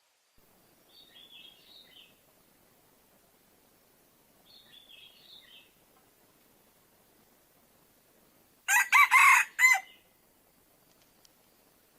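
A rooster crows once, loud and about a second long, near the end. Before it come two faint spells of high peeping, like baby chicks.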